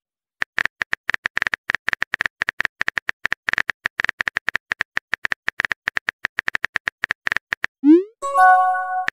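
Texting-app keyboard typing sound effect: a long run of rapid, irregular clicks as a message is typed out. Near the end comes a short rising swoop and then a chime, the app's message-sent sound.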